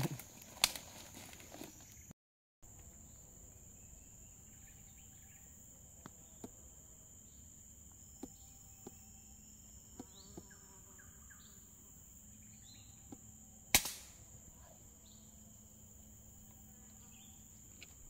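Forest ambience: a steady high insect drone with faint bird chirps and a few small clicks. About two-thirds of the way through comes a single sharp crack, the loudest sound, fitting an air rifle shot fired up into the trees.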